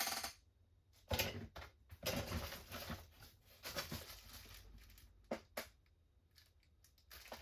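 Plastic kit parts and sprue trees being handled and shuffled, a series of short clicks and rustles with a few sharper ticks.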